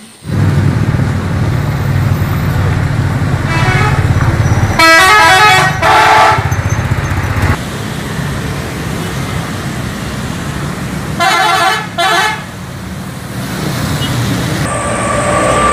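Bus horns honking in several blasts, a cluster of three about four to seven seconds in and two short ones about eleven seconds in, over the steady low rumble of bus engines and road traffic.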